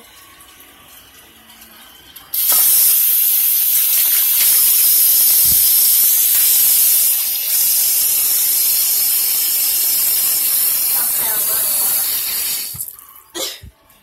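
Kitchen tap running hard into a stainless steel sink, a steady rushing splash. It is turned on about two seconds in and off shortly before the end, followed by a couple of clicks.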